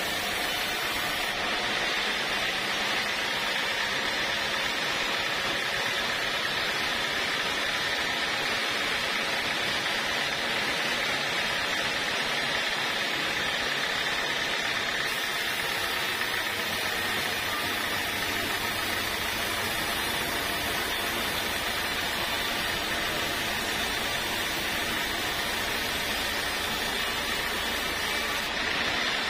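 Band sawmill running, its blade cutting lengthwise through an acacia log: a steady, even machine noise with a high whine.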